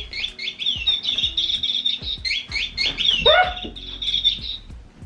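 Rapid, repeated high bird chirps, typical of an electronic chirping bird cat toy. There is a short lower sliding sound about three seconds in.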